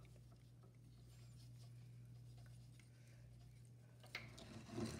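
Near silence with a low steady hum, and faint rubbing of a paintbrush on a small die-cast toy car, a little louder near the end.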